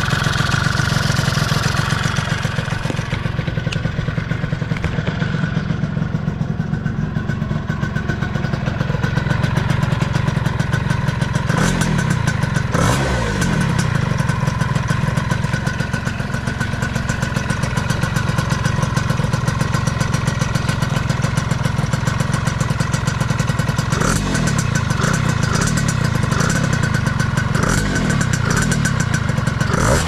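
Honda Dio two-stroke scooter engine running on a new aftermarket exhaust pipe, a steady pulsing idle. It is briefly revved about twelve seconds in and several times in the last six seconds.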